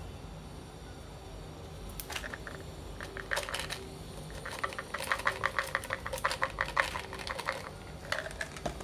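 Fish oil softgels rattling in a plastic supplement bottle as it is tipped and shaken out into a palm: a few short rattles, then a quick run of clicks lasting about three seconds from about halfway in.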